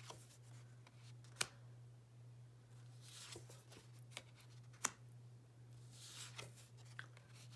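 Tarot cards being slid off a deck and laid one by one onto a pile: soft swishes of card stock with two sharp card clicks, about a second and a half and about five seconds in, over a faint steady low hum.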